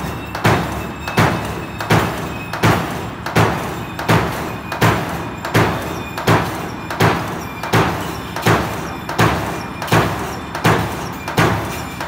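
CNC turret punch press punching a row of holes in a thin metal sheet for a solar water heater inner tank. Sharp, evenly paced strikes, about three every two seconds, each with a brief metallic ring, over the steady running noise of the machine.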